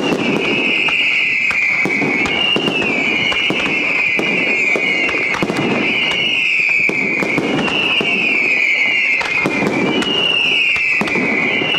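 Fireworks display: aerial shells going off in a quick run of bangs and crackles, over a continuous high shrill whistle that slides down in pitch again and again.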